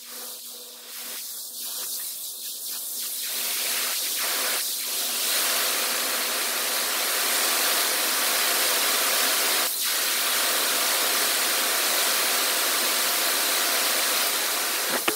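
Gravity-feed compressed-air paint spray gun hissing as it sprays paint. It comes in short bursts at first, then turns into a steady hiss from about five seconds in.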